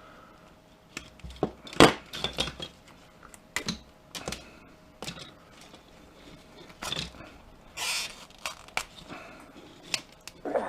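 Razor blade cutting and scraping the heating pad's stitched fabric away from its copper heating wire. It makes scattered sharp clicks and scrapes, with a longer tearing rasp late on.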